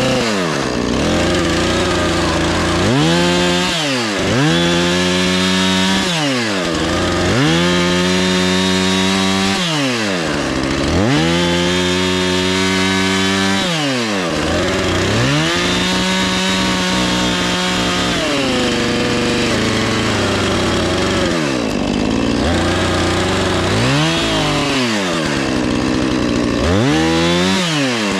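Husqvarna 450 Rancher two-stroke chainsaw running up to full throttle about seven times, holding high speed for a few seconds each time, then dropping back to idle between: the sound of cutting wood.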